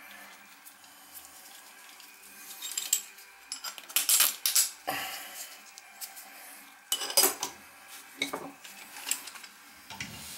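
Metal clinking and scraping from a steel toilet-flange repair strap and a brass closet bolt being handled and slid into place under a broken toilet flange. The clinks come in several short clusters, the loudest about four seconds in and again about seven seconds in.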